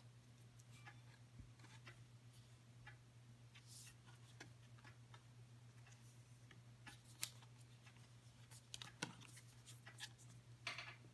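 Near silence: a steady low hum, with a few faint clicks and rubs of fingers handling and turning a cardboard phone box.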